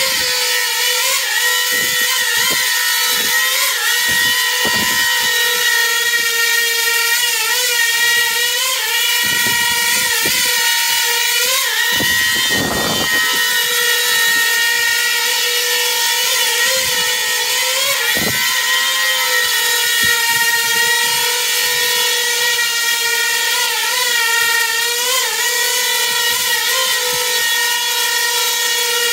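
Coaxial drone's motors and propellers whining steadily in a hover, the pitch wobbling briefly every few seconds as the ArduPilot AutoTune twitches the craft. Short low gusts of rotor wash come through now and then, the biggest about halfway.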